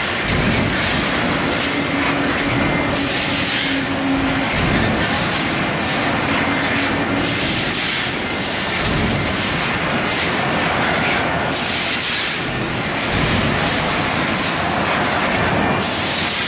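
Stamping press line running: a loud, steady industrial din with hissing bursts every few seconds. A low hum holds through the first seven seconds or so and then stops.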